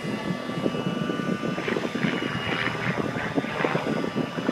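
Radio-controlled model airplane flying overhead, its motor a steady high-pitched drone.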